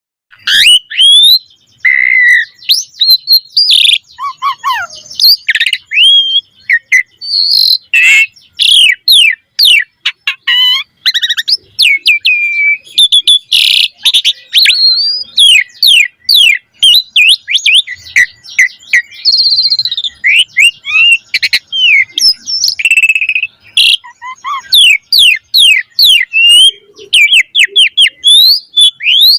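Javan pied starling (jalak suren) singing a continuous, varied song: quick rising and falling whistles and rapid chirp series, broken by a few short harsh notes.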